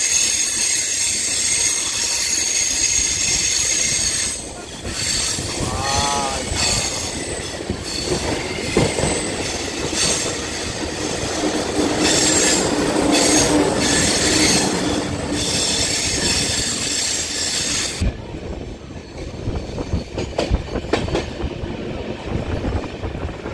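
Deccan Express coaches' wheels squealing on the rails as the train climbs the ghat, over a steady rumble with clicks from the rail joints. The squeal cuts off suddenly about 18 seconds in, leaving the rumble and scattered clacks.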